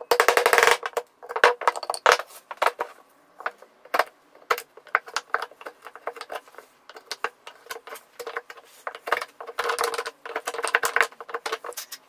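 Steel wood chisel cutting and paring a hexagonal recess into a wooden board: a quick, irregular run of sharp clicks and chips, with dense flurries at the start and again about ten seconds in.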